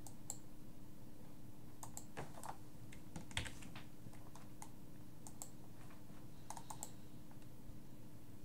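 Computer keyboard typing: irregular runs of key clicks, with one louder knock about three and a half seconds in, over a steady low hum.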